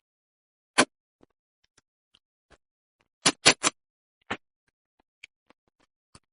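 Close-miked eating sounds: sharp, separate mouth clicks and smacks while eating fish, three in quick succession about three seconds in.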